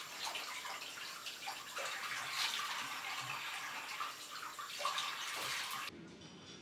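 Water running from a tap and splashing into a basin as someone washes under it, uneven with splashes. It cuts off abruptly near the end.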